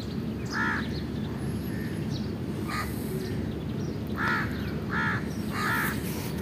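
A bird calling five times in short calls, the last three in quick succession, over a steady low background noise.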